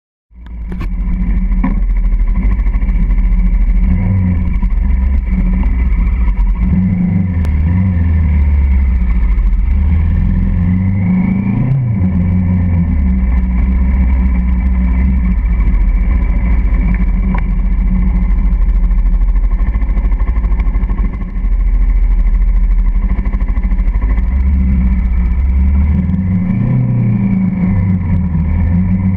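Motorcycle engine heard from a camera mounted on the bike while riding, running steadily with its note rising in a few short accelerations, over a constant rush of wind and road noise.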